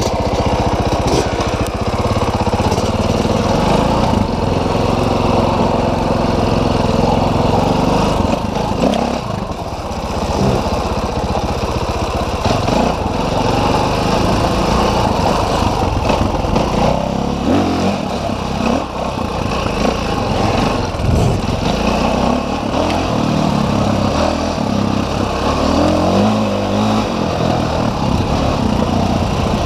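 Dirt bike engine running hard while being ridden along a trail, its pitch rising and falling in steps with throttle and gear changes, easing off briefly about nine seconds in.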